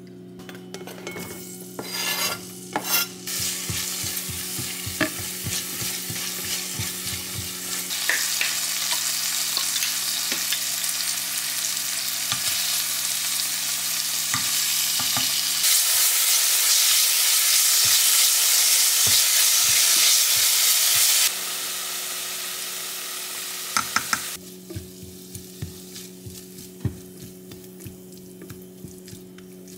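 Food sizzling in a hot pan while it is stirred, with light utensil clicks and scrapes. The sizzle builds and is loudest for about six seconds past the middle, then drops and cuts off abruptly near the end, leaving only a few clicks over a steady low hum.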